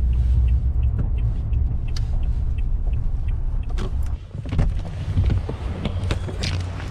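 Car engine and road rumble heard inside the cabin as the car rolls in and stops, with a light regular ticking early on. About four seconds in the rumble drops away, and a series of clicks and knocks follows as the car door is opened.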